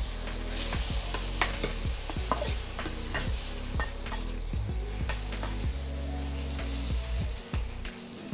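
Shrimp sizzling in butter in a hot stainless steel wok, while a spatula scrapes and knocks against the pan as they are stirred.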